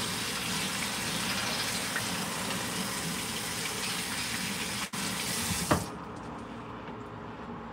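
Kitchen tap running steadily into the sink, then shut off abruptly with a brief sharp sound almost six seconds in.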